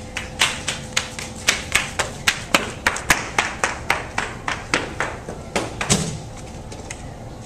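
A quick, even run of sharp taps or claps, about three or four a second, that stops about six seconds in.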